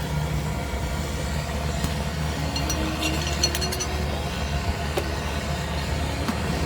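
A motor vehicle engine running steadily, with a few short, high metallic clinks about three seconds in.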